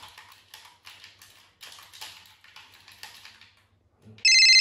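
Rapid clicking of video-game controller buttons, then about four seconds in a phone's electronic ringtone starts, loud, steady and high-pitched.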